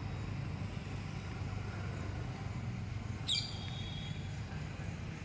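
Steady low outdoor rumble, with one short bird chirp a little past three seconds in: a quick falling sweep that settles on a brief high note.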